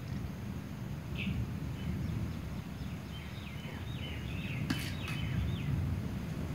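A metal spoon scooping boiled rice into an aluminium biryani pot, with a couple of sharp clinks against the pot about two-thirds of the way in, over a steady low rumble. A series of short falling bird chirps runs through the middle.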